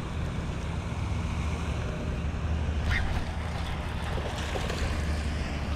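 Wind buffeting the microphone as a steady low rumble, with a single short click about three seconds in.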